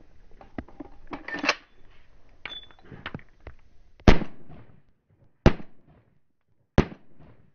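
Three single 9mm pistol shots, about a second and a half apart, each with a short echo; the first is the loudest. Before them come scattered clicks and rustles of the gun being handled.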